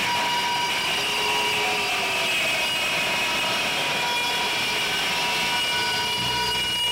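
A live band's wall of amplified noise: a steady roar of distortion with held high feedback tones ringing over it. Low bass-range notes come in near the end.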